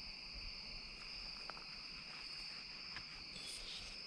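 Steady chorus of night insects, a continuous high-pitched trill, with a couple of faint ticks.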